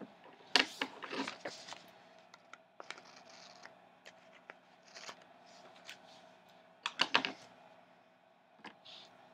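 Loose-leaf planner pages handled on a wooden table: paper rustling and sliding, with scattered sharp taps and clicks, the loudest about half a second in and again about seven seconds in, over a faint steady hum.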